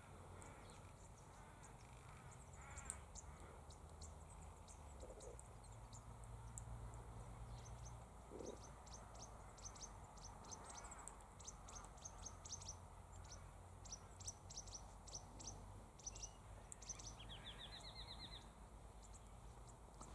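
Faint bird calls: many short, high chirps in quick series through the middle, then a fast run of rising notes near the end, over a low steady background hum.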